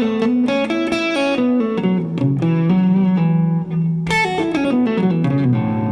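Guitar playing a single-note lead lick in A major pentatonic, with slides, ending in a quick run of notes falling in pitch from about four seconds in.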